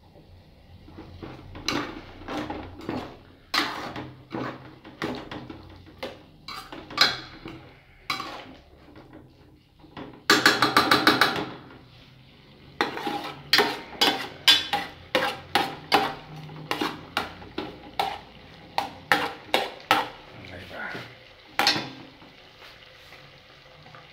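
A plastic spoon knocking and scraping against speckled enamelware pans while stirring sliced green chiles and garlic. It comes as a long run of sharp clicks and clacks, with a dense scrape lasting about two seconds a little before the middle.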